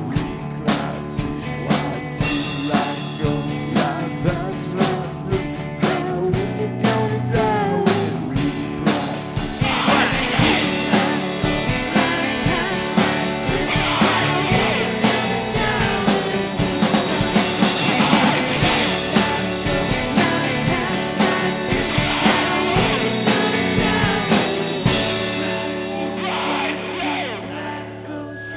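Indie rock music: a full band with a steady drum beat and guitars, swelling about ten seconds in and thinning out near the end.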